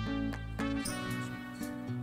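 Background music: steady melodic notes with no other sound standing out.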